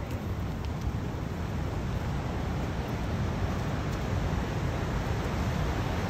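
Steady rush of a whitewater river churning over rock, an even noise with no breaks.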